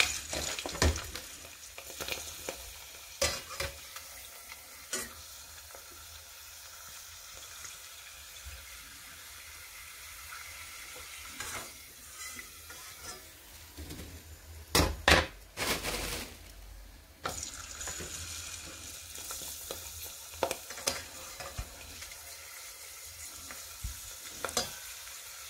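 Hot oil sizzling in a stainless steel pot as a raw kerupuk cracker fries, with a metal spatula clicking and scraping against the pot several times, loudest in a cluster about fifteen seconds in.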